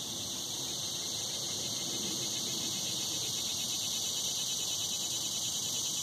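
Steady, high-pitched drone of cicadas calling together, swelling a little over the first couple of seconds and then holding even.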